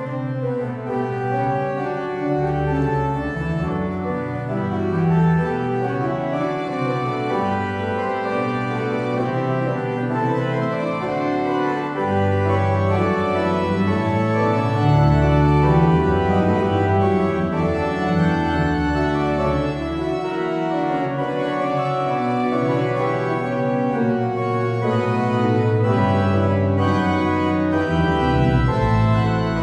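J.W. Walker & Sons concert pipe organ playing, held chords over a pedal bass line that moves every second or two, with no break.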